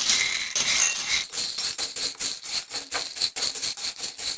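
Roasted black sunflower seeds in their shells, stirred by hand in a glass bowl: a dense, quick rattling clatter of hulls against each other and the glass. The seeds are being coated with a little oil before salting.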